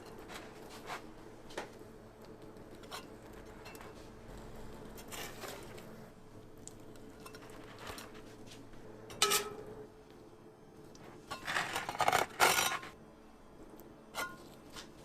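Kitchen clatter of utensils and dishes: scattered light clinks and knocks, a sharper rattle about nine seconds in and a burst of loud clattering around twelve seconds, over a steady hum.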